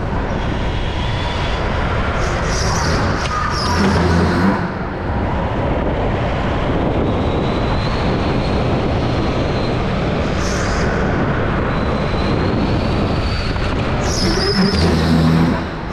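Go-kart driving at speed, a loud steady din heard from the kart itself. It eases off briefly about five seconds in and again near the end.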